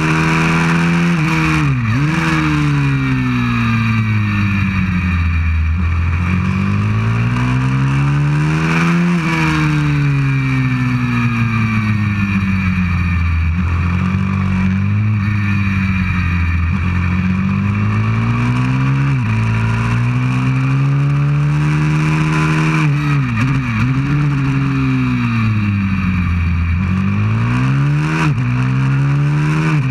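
190cc pit bike engine, heard close up from on board, revving up and down in pitch as it accelerates and slows through the corners. The pitch drops sharply at gear changes, once about two seconds in and several times in quick succession in the last third.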